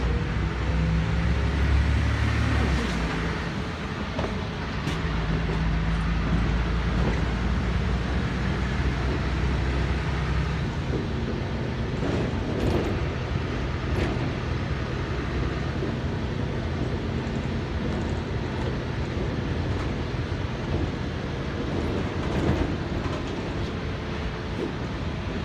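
Inside a LiAZ 5292.21 city bus on the move: the diesel engine's low hum, loudest and stepping in pitch over the first ten seconds, then easing, with road noise and a few short rattles and knocks from the body.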